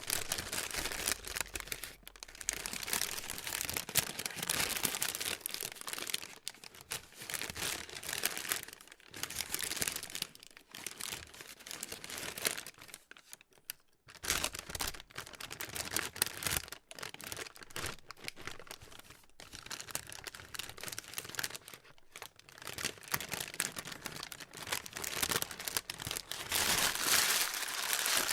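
Plastic being crumpled and crinkled by hand: dense crackling in irregular spells with short pauses between, loudest near the end.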